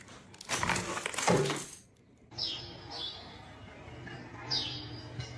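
Animal sounds: a noisy stretch with a brief falling cry about a second in, then three short, high, falling chirps over a quieter background.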